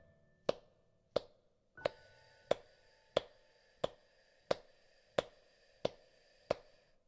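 Hand claps at an even pace, about three every two seconds, counting out the breath-hold and exhale of a 4-4-8 breathing exercise. A soft, held piano chord comes in under them about two seconds in.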